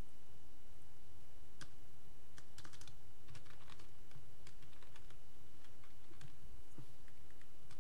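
Typing on a computer keyboard: irregular clusters of key clicks that start about one and a half seconds in, over a steady low background hum.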